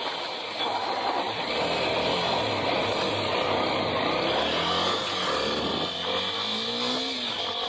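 Dirt bike engine running and revving as it accelerates, louder from about half a second in, with pitch rising again near the end.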